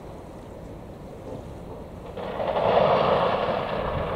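Wind and water noise at the waterfront, with a sudden surge of rushing noise about two seconds in that peaks and slowly dies away.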